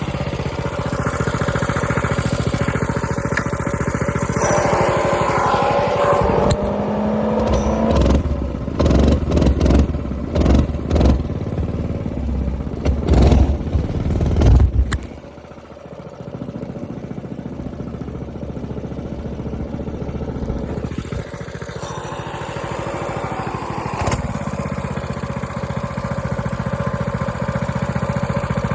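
Coleman B200R minibike's 196cc single-cylinder four-stroke engine running, revved up and down several times, then dropping back suddenly and settling into a steady run. A chain noise that the owner calls weird is part of the sound.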